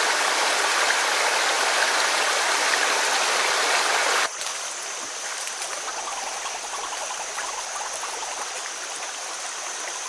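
Water rushing steadily over rocks in a small cascade of a forest stream, loud and even. About four seconds in it cuts abruptly to a quieter, steady hiss for the rest.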